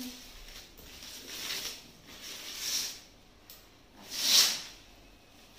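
Clear plastic wrap being pulled and crumpled off a packaged box: crinkling rustles in three swells, the loudest about four seconds in.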